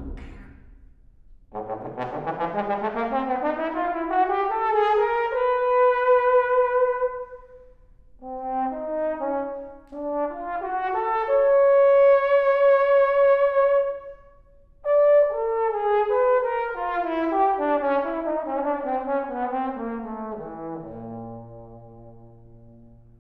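Trombone playing with an electronic tape part: a long slide glissando rising to a held note, a few short notes, and a held higher note. After a brief break, overlapping lines step downward and settle on a low held note near the end.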